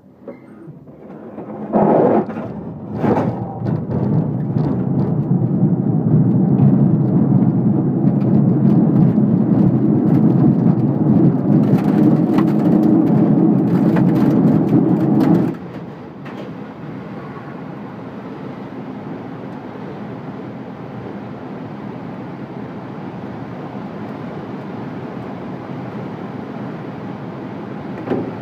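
Glider on its takeoff roll: the airframe and wheel rumble and rattle loudly over the rough strip, with two heavy jolts as it starts moving. About fifteen seconds in the rumble cuts off abruptly as the glider lifts off, leaving a steady rush of air over the canopy.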